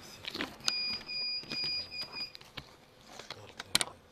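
An electronic device beeps in a short run of high, evenly spaced beeps about a second in. A couple of sharp clicks follow near the end.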